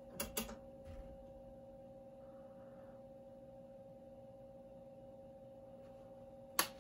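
A steady pure tone from the ham radio station during amplifier tune-up, with two sharp clicks just after the start and another near the end as the Ameritron AL-811's front-panel controls are worked.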